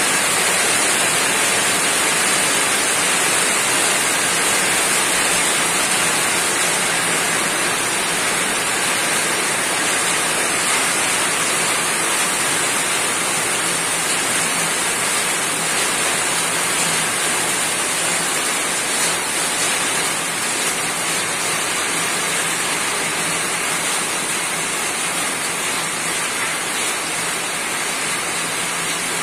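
Rain falling steadily on a roof, a dense, even hiss of drops.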